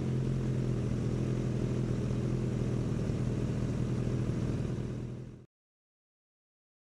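Motorcycle engine running steadily at an even pitch. It fades out and cuts to silence about five and a half seconds in.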